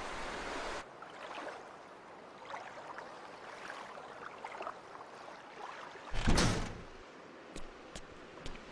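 Sound effects of a wordless animated film. A steady rush of sea and wind stops abruptly just under a second in. Small scattered movement sounds follow, then one loud knock about six seconds in that lasts about half a second.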